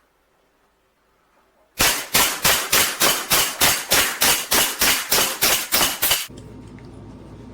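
Umarex Colt Commander CO2 blowback BB pistol fired in rapid semi-automatic succession: about sixteen sharp shots at three to four a second, starting about two seconds in. Near the end the shots stop and a steady low hum takes over.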